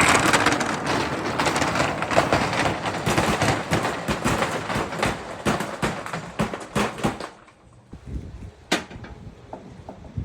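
Balls rolling down a marble run, a steady rolling rumble full of rapid clicks and clacks as they hit the track and each other. It dies down about seven and a half seconds in, leaving a few scattered clicks, one sharp one near the end.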